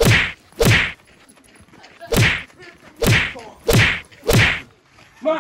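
Six punch sound effects in a scuffle, each a short swishing hit with a dropping thud, coming at uneven gaps of half a second to a second and a half.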